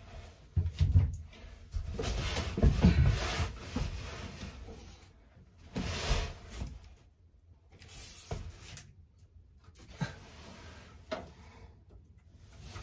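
Irregular rubbing and rustling from hands-on work on overhead wiring and fittings in a small cabin, with a few short sharp knocks scattered through.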